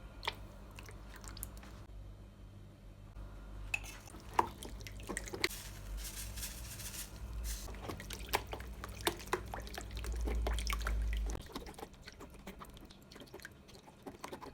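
Kitchen sounds of wet dough ingredients being handled in a bowl: scattered clicks and taps, a short pouring hiss about six seconds in, and liquid squishing sounds.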